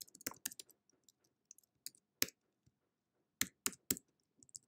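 Computer keyboard being typed on: separate key clicks in uneven bursts, a quick run of keystrokes at the start, a single one a little past two seconds, then three close together towards the end.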